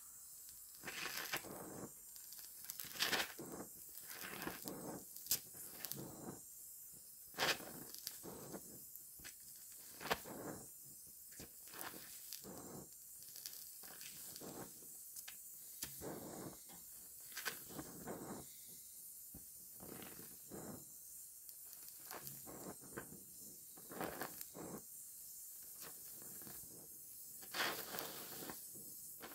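Oxy-acetylene welding torch hissing steadily while filler rod is melted into a sheet-steel seam, the weld puddle crackling and popping irregularly with a few sharper snaps.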